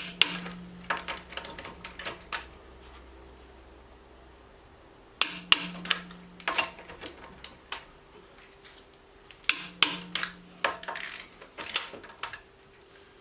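Click-type torque wrench tightening wheel nuts to 120 ft-lbs: three bursts, each opening with a sharp click and followed by a run of lighter metal clicks and clatter from the wrench and socket.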